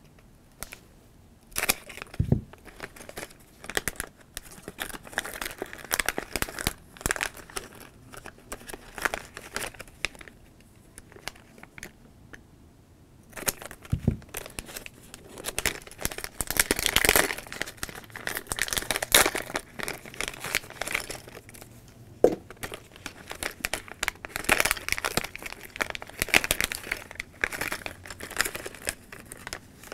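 Crinkly plastic Lego minifigure blind-bag packets being cut open with scissors and torn and pulled apart by hand, with a few sharp clicks and a brief quiet lull near the middle.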